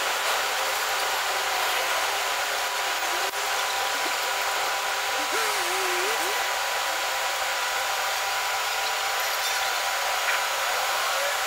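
Steady city street background noise: an even, constant hiss with a faint hum and no distinct events.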